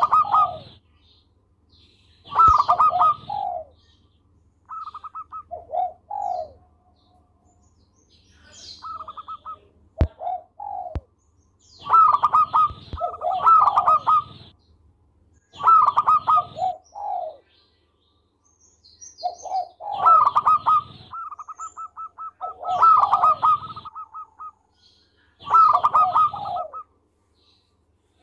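Zebra dove (perkutut) singing: repeated phrases of rapid staccato cooing notes, each phrase ending on lower coos, coming every two to three seconds.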